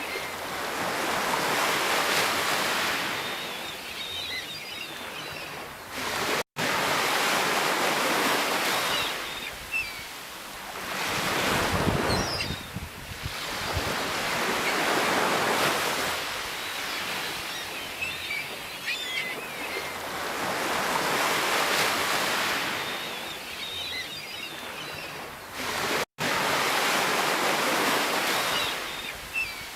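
Sea waves breaking and washing up a shore, a new surge of hissing surf swelling and fading every few seconds. Twice the sound cuts out for an instant.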